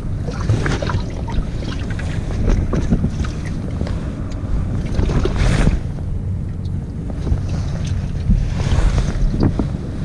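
Wind rumbling on the microphone and water lapping around a bass boat, with scattered knocks and rustles of gear and clothing being handled on the deck. Two louder rushes of noise come about five and nine seconds in.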